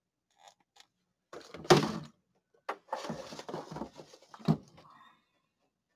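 Rubber-stamping supplies handled on a craft desk: a loud thunk about two seconds in, a click, a short rustle, then another thunk, as a stamp and acrylic block are picked up and pressed down.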